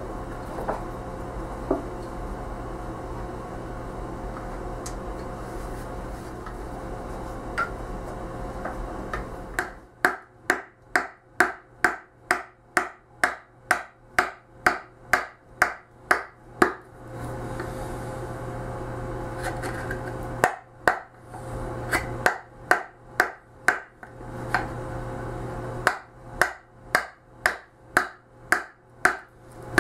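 A mallet striking a carving gouge into solid Honduran mahogany, hollowing out a barbat bowl: evenly spaced sharp knocks about twice a second, in three runs with short pauses between. Before the strikes start, about ten seconds in, there is only a steady low hum with a few faint clicks.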